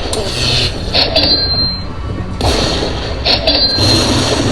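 Lightning Link Happy Lantern slot machine spinning: a noisy whirring spin sound that repeats about every two and a half seconds, with sharp clicks and a short high ding twice.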